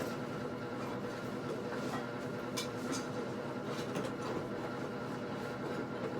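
A steady background hum with a few faint clicks about two and a half, three and four seconds in.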